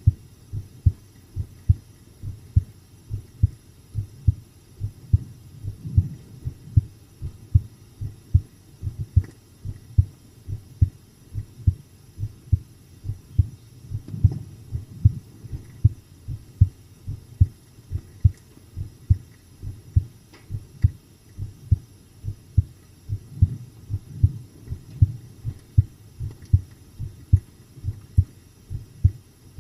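A person's heartbeat at rest, recorded close up: steady, even lub-dub beats at a calm pace.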